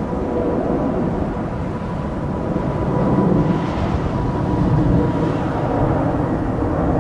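Cabin noise inside a Boeing 737-800: the CFM56 jet engines running with a steady deep rumble and a thin steady whine on top.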